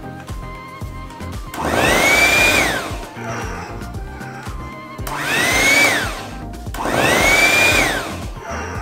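Handheld electric mixer switched on in three short bursts, its motor whining up in pitch and dropping away as each burst ends, its beaters churning butter and powdered sugar in a glass bowl.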